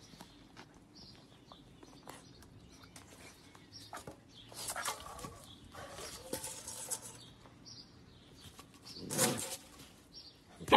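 German Shepherd puppy lapping water and pawing at a stainless steel bowl, with faint splashing and knocking as the bowl tips onto its side. Faint bird chirps now and then.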